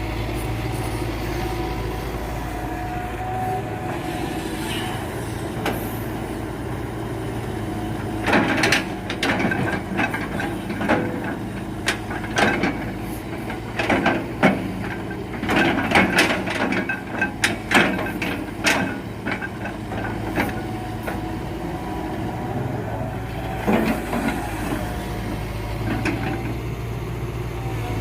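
Heavy diesel engine of a hydraulic excavator running steadily while rubberwood logs are handled. A run of sharp knocks and clatters comes through the middle, with one more a few seconds later.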